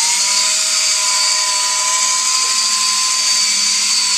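Cordless drill spinning a Mothers PowerCone foam polishing cone against an aluminum snowmobile tunnel, running at a steady fast speed with an unbroken whine.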